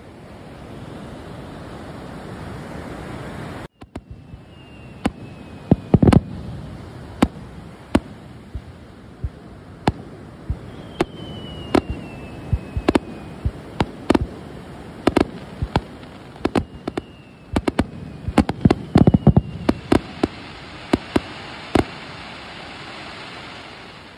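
Fireworks bursting over the sea in a rapid barrage of sharp bangs, some in quick clusters, with a few short falling whistles among them. For the first few seconds there is only a steady rush of surf before the bangs begin.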